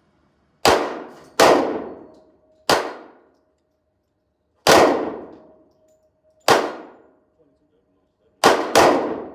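Seven pistol shots fired at irregular intervals in an indoor range, each a sharp crack with a reverberant tail; the last two come in quick succession near the end.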